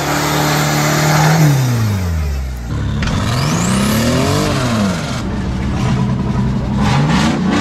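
Off-road competition 4WD engines revving across quick cuts. One holds steady and then drops away, another revs up and back down in the middle, and one picks up again near the end. A thin rising whistle sounds briefly about three seconds in.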